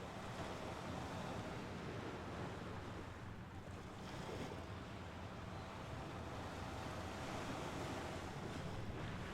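Gentle sea waves washing on a shore, a steady rushing wash that swells and eases slightly.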